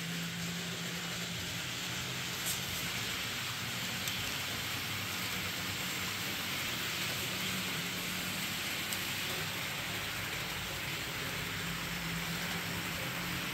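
H0-scale model train running on its track: a steady hissing rolling noise over a low motor hum, with a few faint clicks.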